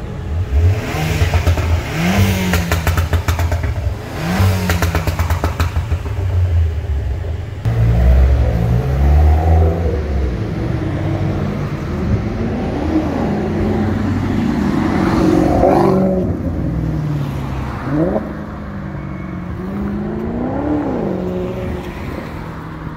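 Sports car engines revved again and again in short blips, each rising and falling in pitch. Rapid crackling follows the revs in the first few seconds.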